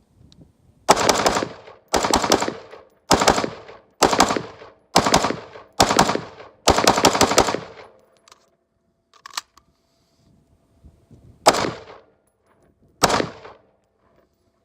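Daniel Defense Mk18 short-barreled 5.56 AR pistol firing Federal 55-grain ammunition in about nine sharp, loud shots, each with a short ringing tail. Seven come at a steady pace of about one a second, then after a pause of a few seconds two more follow about a second and a half apart.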